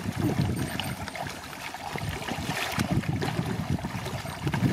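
Muddy water sloshing and splashing around a person wading in shallow floodwater while hauling and handling a fishing net, with irregular slaps and swirls.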